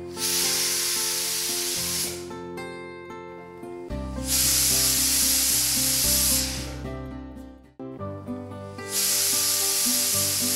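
Stovetop pressure cooker whistling three times: steam hisses out past the lifting weight valve in three bursts of two to three seconds each, over background music. The third whistle marks the end of the cooking time.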